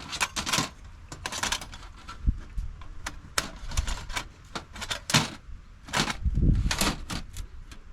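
Irregular clicks and knocks of hard objects being handled, a few with a low thump, the heaviest about six and a half seconds in.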